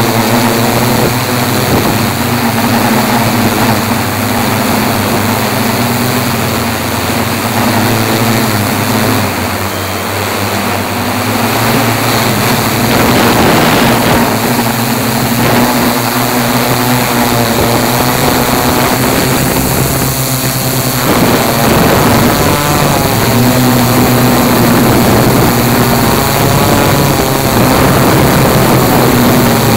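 Tarot 680 Pro hexacopter in flight, heard from its onboard camera: a loud, steady buzz of six electric motors and propellers whose hum shifts up and down in pitch as the motors correct, over a rush of wind noise.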